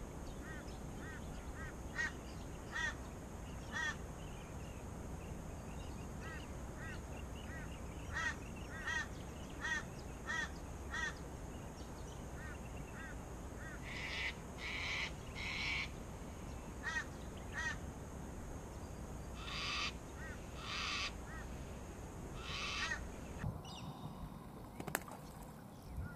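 Birds calling: runs of short, repeated call notes, with harsher, rasping calls in between around the middle and later on, over a steady low background hiss.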